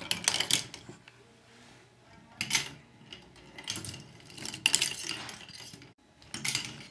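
A ball running along a K'nex ball machine's track, clattering against the plastic rails and pieces in irregular bursts of rattling clicks a second or two apart.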